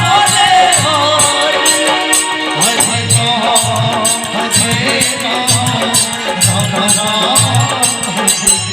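Kirtan devotional music: a wavering sung melody over steady sustained instrument tones, with a regular beat of hand cymbals and a low drum.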